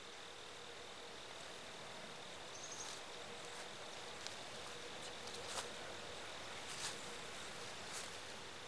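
Quiet field ambience: a steady, faint, high-pitched insect trill over a soft hiss, with a few faint clicks scattered through the middle.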